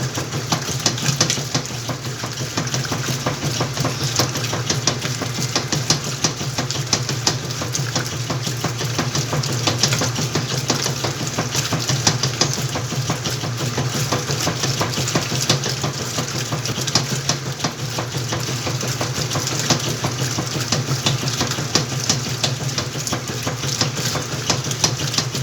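Whirlpool washing machine running, with a steady motor hum and water splashing and sloshing in the drum. It cuts off suddenly at the end.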